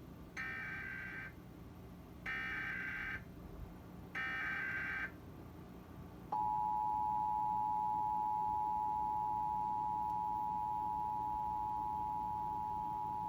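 Emergency Alert System SAME header: three short bursts of digital data tones about a second apart, coding the alert as a required monthly test. About six seconds in, the steady two-tone EAS attention signal starts and holds.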